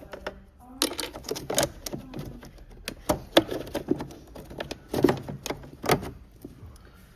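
Irregular clicks and knocks of hard plastic being handled as a wiring plug is pushed back into a car's LED headlight unit, with rattling of the connector and housing. The clicks come in uneven clusters, the sharpest a little after three seconds and again around five and six seconds.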